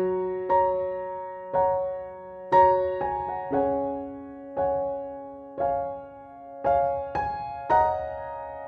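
Slow, calm piano music: notes and chords struck about once a second, each left to ring and fade before the next.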